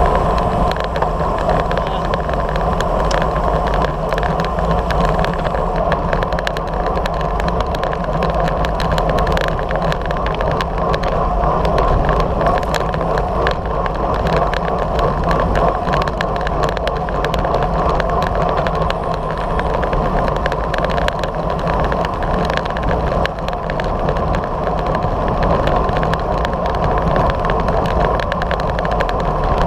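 Wind noise and road rumble from a camera mounted on a moving road bike, a loud steady rush with frequent small clicks and rattles.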